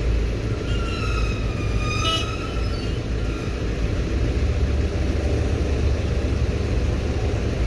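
Road traffic idling at a red light: a steady low engine rumble. About a second in, a higher pitched tone sounds for about a second and a half, falling slightly in pitch, like a distant horn or siren.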